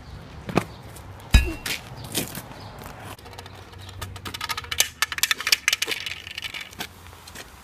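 A sharp knock about a second and a half in with a brief metallic ring, followed a couple of seconds later by a quick flurry of small clicks and clinks.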